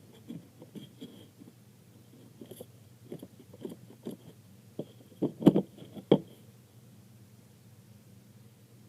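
Irregular small clicks and soft knocks from craft materials being handled, with two louder thumps about five and a half and six seconds in, over a low steady hum.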